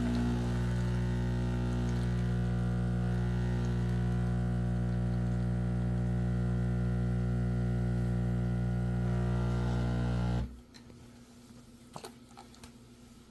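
Terra Kaffe TK-02 super-automatic espresso machine humming steadily while brewing a single shot of espresso. It stops abruptly about ten seconds in, with a couple of faint clicks after.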